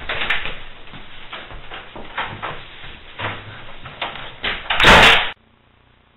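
Wooden interior panel door opened, then slammed shut about five seconds in; the slam is the loudest sound.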